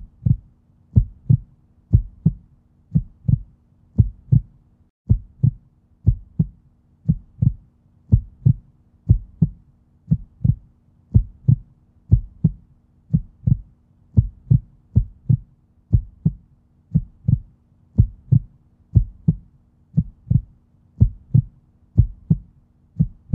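Heartbeat sound effect: low double thumps about once a second, over a faint steady hum.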